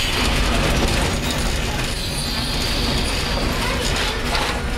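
Vintage electric railcar under way: steady running noise of its gearing and wheels on the rails, with a faint high whine about two seconds in.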